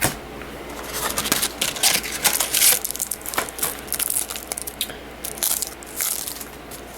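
Trading-card booster pack being handled: the wrapper crinkles and tears and the cards rustle against each other, a quick run of short papery crinkles.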